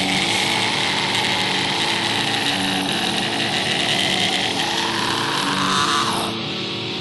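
One long, harsh black-metal shriek, held for about six seconds and rising slowly in pitch before it cuts off near the end, over distorted guitar riffing.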